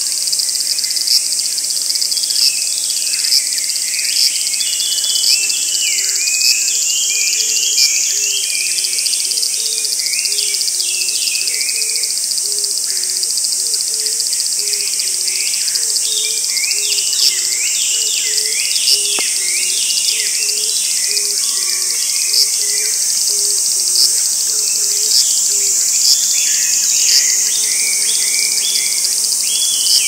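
Summer woodland ambience: a dense, shrill insect chorus drones steadily, stepping slightly in pitch a few times, while birds call over it with quick, repeated falling chirps. A lower call repeats over and over through the middle.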